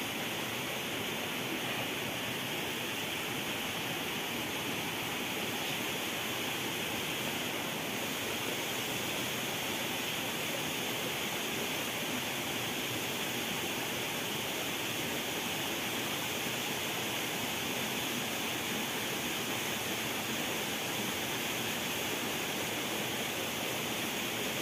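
Steady rush of stream water flowing over and around boulders.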